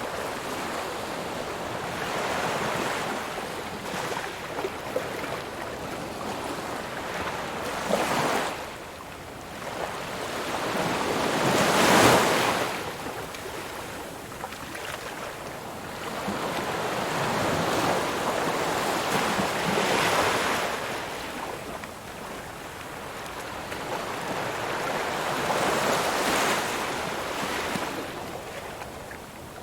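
Ocean waves breaking and washing up a shore, the surf rising and falling every several seconds; the biggest wave crashes about twelve seconds in.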